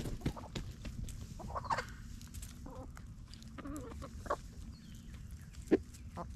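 Chickens clucking in short, scattered calls while they forage, over faint clicks and rustles from scratching in leaf litter, with one sharp, louder sound near the end.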